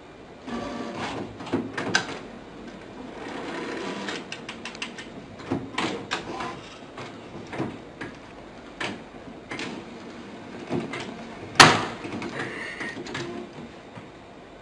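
Irregular knocks and clacks of a cabinet drawer rattling as a cat paws at its knob, with one much louder bang about two-thirds of the way through.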